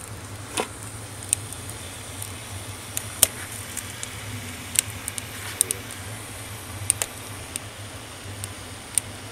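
Coffee pot of water on a hot wood-fired rocket stove, ticking and crackling with irregular sharp clicks as it comes up to just short of a boil, over a steady low hum.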